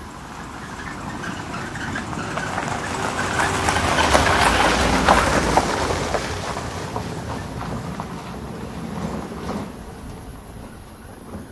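Car tyres rolling over gravel as the car passes by: a crunching, crackling rumble that builds to its loudest about halfway through, then fades away.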